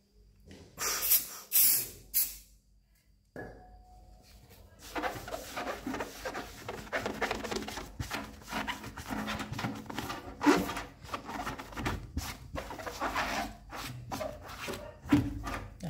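A foam sponge wiping over the metal case of a Kenwood amplifier. There are a few louder scuffs in the first two seconds, then from about five seconds in a steady run of rubbing strokes.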